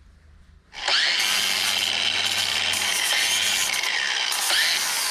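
Cordless angle grinder with a worn flap disc starting about a second in and grinding down the sharp machined edges of a stainless steel foot peg. It runs steadily, with a high whine whose pitch dips and recovers as the disc bears on the metal.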